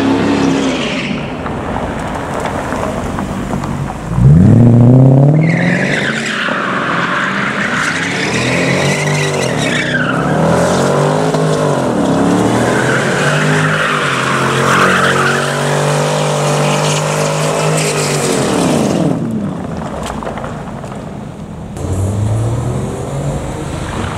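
A car drifting in circles: engine revved hard about four seconds in, then revs rising and falling again and again with tyres screeching. It eases off near the end, then revs up once more.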